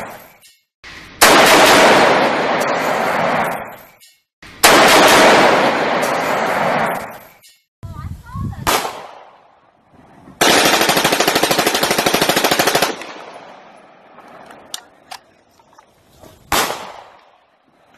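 Rifle fire in long automatic bursts: two long bursts, then a short one, then a fast rapid-fire burst of about two and a half seconds. A few single shots follow near the end.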